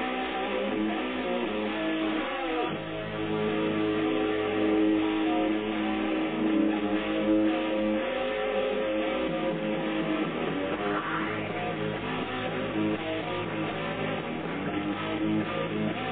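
Classic rock song on a radio station broadcast, with strummed guitars to the fore. The sound is dull and lacks treble.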